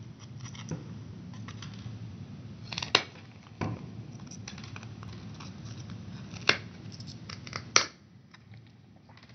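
Snips cutting through the circuit board of a RAM memory module, trimming off its gold-plated edge connector: a few sharp snaps as each bite goes through the board, with faint scraping and handling between them.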